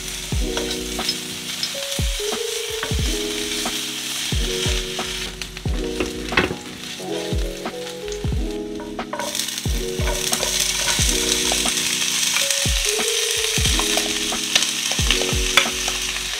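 Minced garlic sizzling in hot oil in a nonstick frying pan, stirred with a wooden spatula that makes light scraping clicks. The sizzle grows louder about nine seconds in.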